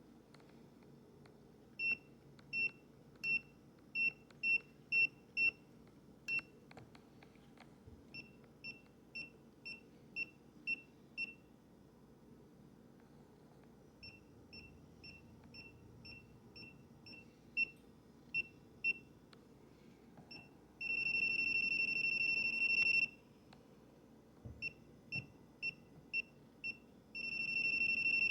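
Tesmen 522s digital multimeter's built-in beeper sounding: runs of short, high-pitched beeps about one to two a second, broken by pauses, and twice a long steady tone of the same pitch, the second starting near the end.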